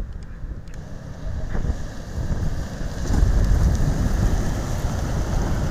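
A Toyota Land Cruiser SUV driving past, its tyre and engine noise growing louder about three seconds in, with wind buffeting the microphone.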